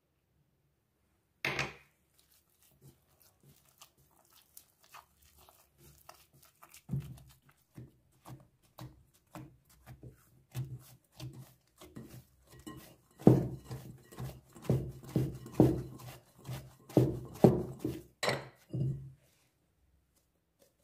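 Yeast dough being mixed and kneaded by hand in a glass bowl: a run of soft thuds and squelches at roughly two a second, with the bowl clunking on the counter. One sharp knock about a second and a half in; the kneading gets louder in the last several seconds.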